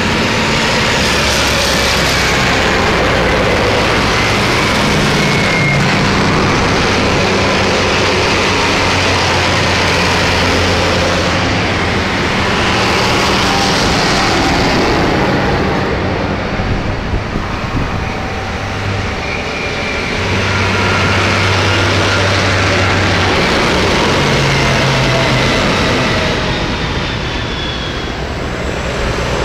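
Diesel tractor engines running as a line of tractors drives past one after another, the sound swelling as each one comes close and easing between them.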